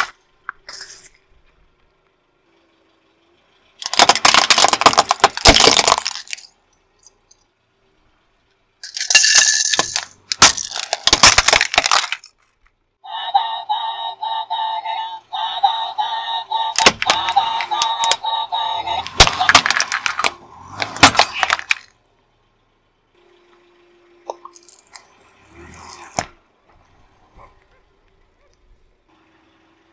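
Objects crushed one after another under a car tyre, loud crunching and cracking bursts a few seconds apart. In the middle, a battery-powered light-up Minion toy plays its electronic tune for several seconds, and the crunching breaks over it as the wheel rolls on.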